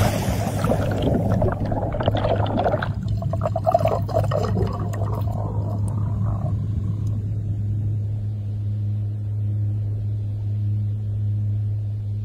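Underwater rush of bubbling water after a dive, dense for the first few seconds and fading out about halfway through, over a steady low hum.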